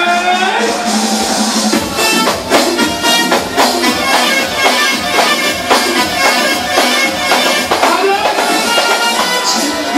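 Live party band playing an instrumental passage: a held melody line over a steady drum beat of about two strokes a second. A sung note ends about half a second in.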